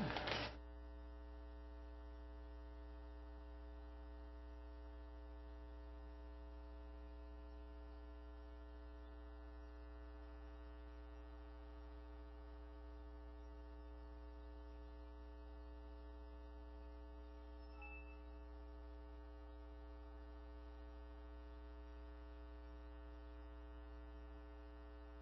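Faint, steady electrical mains hum with a stack of overtones and nothing else. It is the background hum of the audio feed once speech stops.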